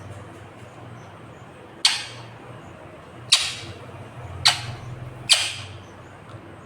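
Ringneck parakeet giving four short, harsh screeches about a second apart, the first about two seconds in.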